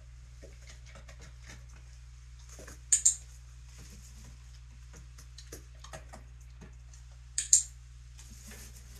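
Handheld training clicker clicked twice, each a sharp double click of press and release, about three seconds in and again about seven and a half seconds in, marking the dog's correct response. Faint small taps and rustles come in between.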